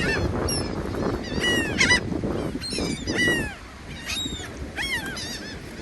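A flock of seagulls calling: many short, arched squawks overlapping one after another, over a low rumble that fades about halfway through.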